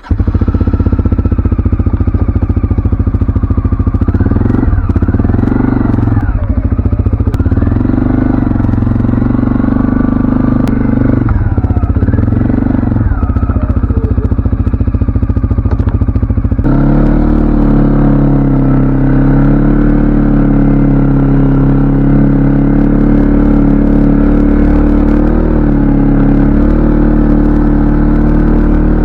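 CFMoto ATV engine running while riding, its pitch rising and falling several times as it speeds up and eases off. About two-thirds of the way through it changes abruptly to a steadier, even note.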